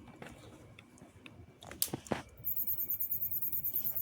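An unidentified rapid, high-pitched rhythmic squeaking, about eight pulses a second, that starts a little past halfway after a couple of sharp clicks. It sounds like a faucet being loosened.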